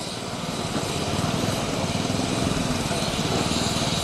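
Miniature-railway locomotive standing at the platform: a steady, rapid low pulsing like a small engine, with a hiss over it, growing louder over the first second.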